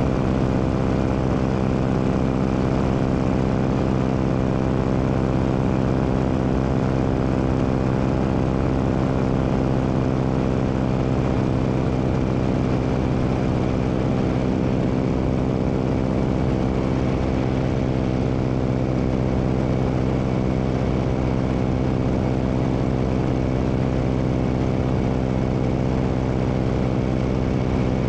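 Biplane's piston engine and propeller running steadily in cruising flight, an unchanging drone, under a steady rush of air over the wing-mounted microphone.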